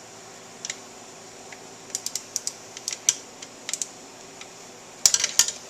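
Irregular light metallic clicks and taps of a socket ratchet on a long extension working the reed cage bolts, with a louder quick cluster of clicks about five seconds in.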